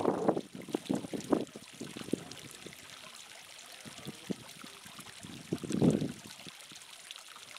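Hot spring water trickling and dripping into a shallow rock pool, with a few sharp drip-like ticks in the first two seconds. Wind buffets the microphone at the start and again about six seconds in.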